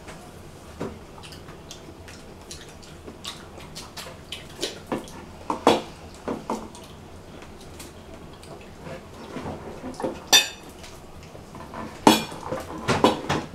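Scattered small clinks and taps of hands picking pomegranate seeds apart over plates, with a cluster of louder clinks near the end.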